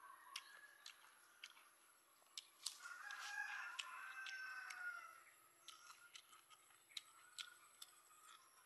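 A rooster crowing once near the middle, a single long call of about two seconds that falls away at the end, over quiet chewing and crunching of crisp fried chicken with small clicks throughout.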